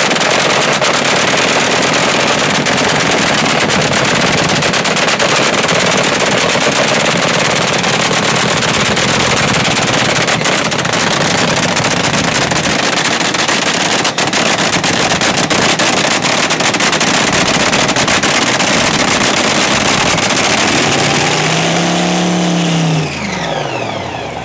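Front-engine dragster's engine running loud through open zoomie headers, the exhaust crackling and popping as it spits flames. A falling tone comes in near the end.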